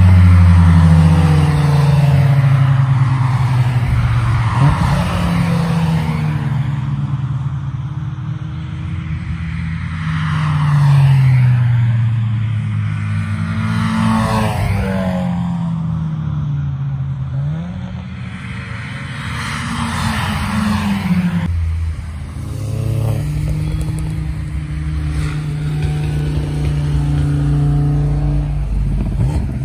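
Cars at speed on a race circuit passing one after another, engines revving hard and shifting gear, each engine note rising and falling as the car goes by.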